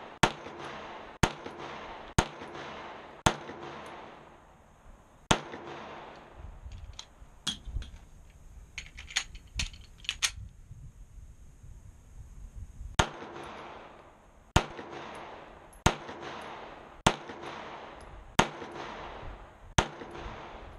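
Compact single-stack pistol firing at a steady pace, a shot about every second. There are five shots, then a pause of several seconds filled with small clicks and knocks as the pistol is handled, then six more shots.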